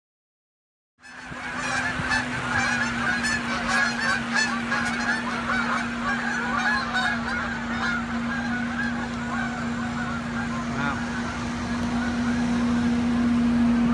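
A large flock of Canada geese honking in flight, many calls overlapping, over a steady low hum. The honking starts about a second in and thins out in the second half.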